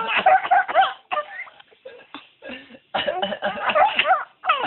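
A man coughing in quick repeated fits: one run of short coughs at the start and another about three seconds in.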